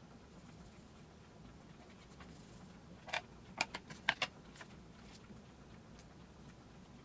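About six quick, sharp taps and clacks in just over a second, about three seconds in, as a thin miniature floor board is flipped over and set down on a cutting mat.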